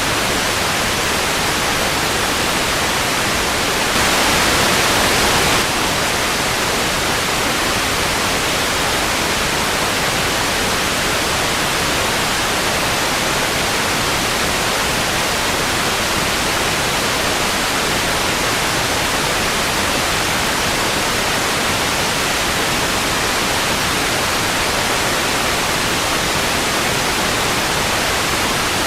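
Analog TV static: a steady, even hiss of noise. About four seconds in it turns slightly louder and brighter for under two seconds.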